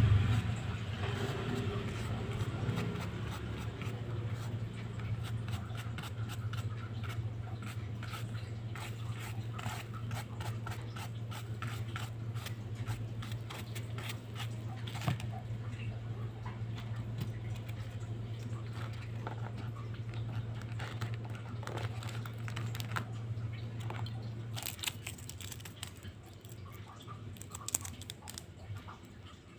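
Light scratching and crackling from a brush and fingers handling coloured sand on a sand-art card, with a steady low hum underneath that stops near the end.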